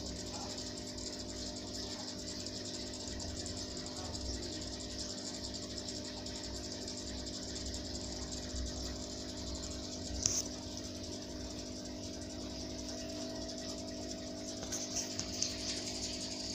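Steady electrical hum of an aquarium's submersible pump, with a constant high hiss over it. There is one sharp click about ten seconds in and a few small ticks near the end.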